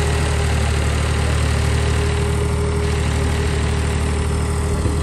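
Al-Ghazi tractor's diesel engine running steadily at low speed while pulling a loaded trailer through mud: a loud, even low drone with a thin steady tone above it.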